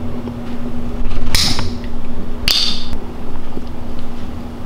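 Aluminium soda can being pulled open: a sharp crack with a fizzing hiss about a second and a half in, then a second shorter hiss about a second later as the tab is pushed further.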